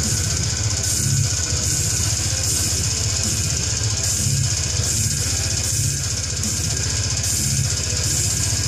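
Heavy metal song playing: a drum kit with constant cymbals and a pulsing kick drum under distorted guitar.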